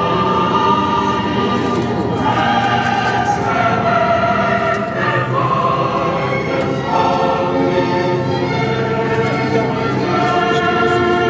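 Background music: a choir singing long, held notes that shift in pitch every second or two.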